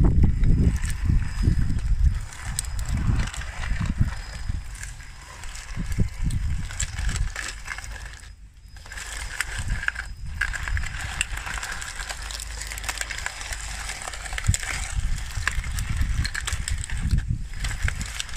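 Radio-controlled model bulldozer driving through a muddy puddle: 3D-printed plastic track chains clattering with many small clicks over an uneven low rumble, loudest in the first couple of seconds.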